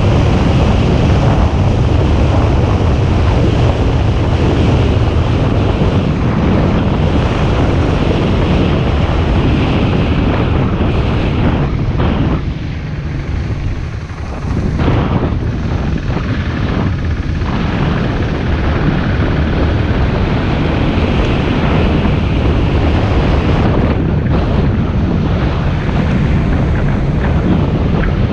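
Wind buffeting the microphone while riding a bicycle: a loud, steady rushing rumble that eases for about two seconds near the middle.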